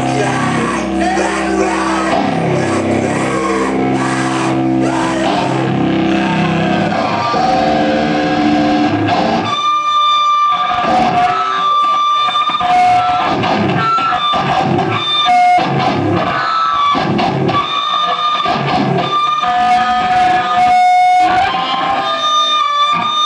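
Amplified electric guitar played live, heavy sustained chords for the first several seconds, then from about ten seconds in a sparser stop-start passage of held high notes.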